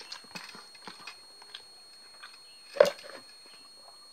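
Close-up chewing and mouth sounds of someone eating rice and thinly sliced fried tempeh by hand, with small scattered clicks and smacks, and one sharp, much louder smack about three seconds in.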